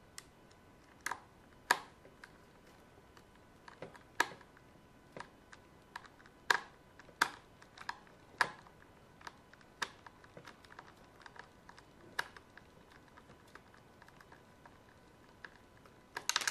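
Irregular sharp clicks and taps of hard plastic, a few louder than the rest, as the plastic housing of an Electrolux steam iron is handled and worked at with a small hand tool.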